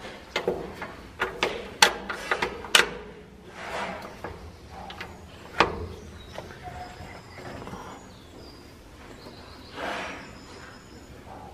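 Metal clicks and clunks as an old excavator's hand control levers and fittings are moved: a quick run of them in the first three seconds, then a few scattered knocks and a soft rustle near the end.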